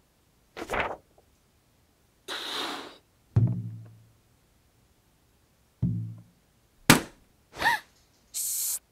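A string of short cartoon sound effects separated by silence: a brief hiss, two low booming thuds that ring off, a sharp click, a short chirp that bends in pitch, and a final hiss.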